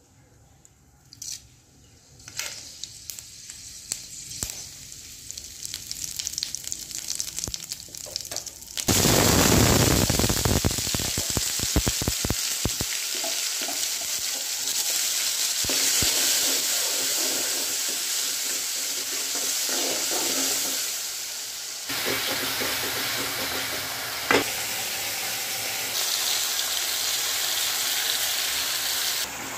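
Masala frying in hot oil in an aluminium kadai. There is a faint sizzle at first, then a sudden loud sizzle about nine seconds in as food goes into the oil, and it keeps sizzling steadily after that, with one sharp tap near the end.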